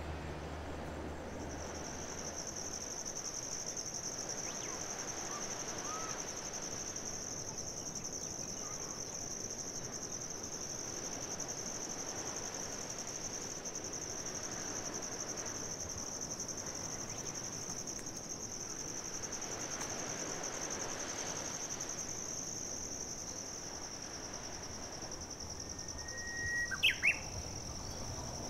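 A steady, high-pitched insect trill that starts about a second in and runs on without a break, over a faint wash of outdoor background noise. Near the end a bird gives a few sharp chirps, the loudest sounds.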